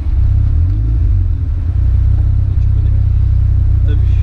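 Caterham Super 7's engine idling with the car standing still, a loud, steady low rumble.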